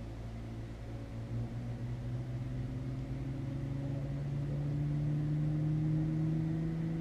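Car engine running steadily while stopped, heard from inside the car, its hum creeping slowly up in pitch from about two seconds in.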